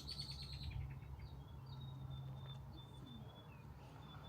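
Faint birdsong: a quick run of high chirps at the start, then thin, high whistled notes repeating on and off, over a steady low hum.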